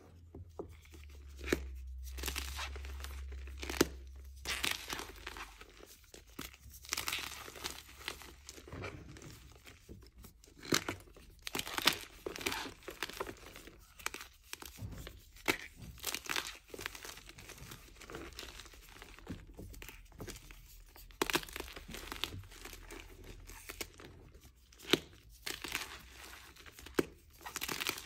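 Blocks of gym chalk coated in cornstarch being squeezed and crushed by hand: irregular dry crunching and crumbling, with the squeaks of packed cornstarch under the fingers.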